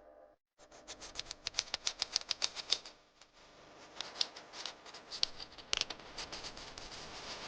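Irregular runs of small, sharp clicks and light taps from hands working tools and brake parts during a hydraulic bicycle brake oil change, after a brief silent gap just after the start.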